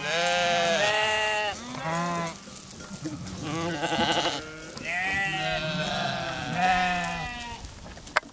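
A mixed flock of sheep and goats bleating, many calls overlapping and following one after another, with a single sharp click near the end.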